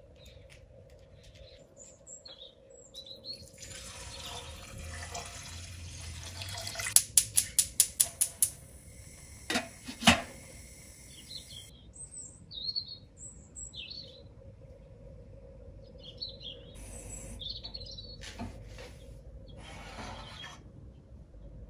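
A gas hob's igniter clicks rapidly, about eight times, over a steady rushing hiss. Then a glass lid knocks twice on a stainless steel pot. Birds chirp now and then in the background.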